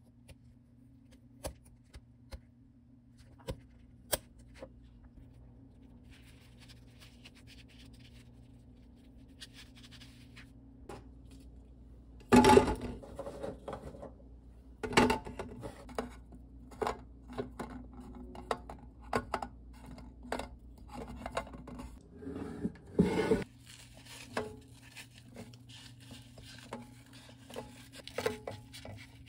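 Knife scoring the shells of raw chestnuts: a few small clicks and scrapes. About halfway in, chestnuts clatter loudly into an air-fryer basket, and later, after a second loud clatter, roasted chestnuts with split shells are picked over, knocking and rustling against the basket.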